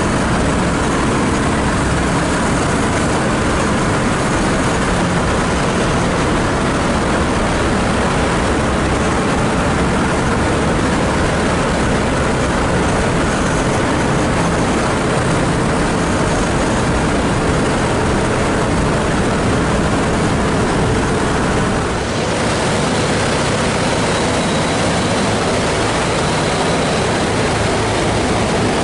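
The four Wright R-1820 Cyclone radial engines of a B-17 Flying Fortress drone steadily in flight, heard from inside the fuselage, with propeller and airflow noise. The tone shifts slightly about three-quarters of the way through.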